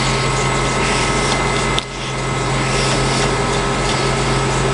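Bench grinder with a belt-grinder attachment running steadily: a steady electric-motor hum with a dense hissing whir. A click near two seconds in, where the sound briefly dips and builds back up.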